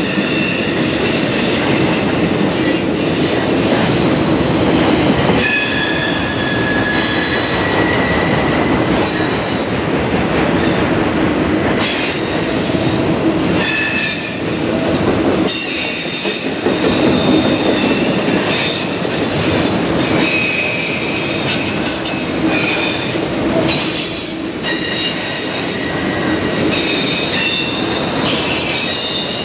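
Freight train of autorack cars rolling past close by: a loud, steady rumble of steel wheels on rail, with high-pitched wheel squeals coming and going throughout.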